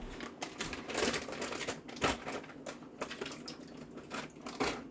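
Irregular clicks, knocks and rustling from handling a raw pork crown roast in its pan, the loudest knocks about a second, two seconds and four and a half seconds in.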